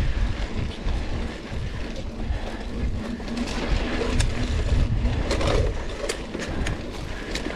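Mountain bike riding along a trail: wind buffeting the microphone with a low rumble, and from about halfway a series of sharp clicks and rattles as the bike goes over rough ground.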